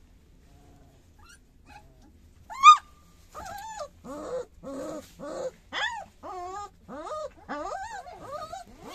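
Three-week-old puppies whimpering and crying. One sharp yelp comes about two and a half seconds in, then a run of short whines that rise and fall in pitch, about two a second.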